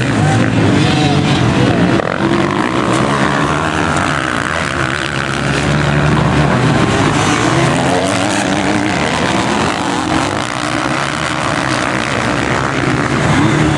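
A pack of motocross bikes racing, several engines revving at once, their pitches rising and falling and overlapping as the riders throttle and shift.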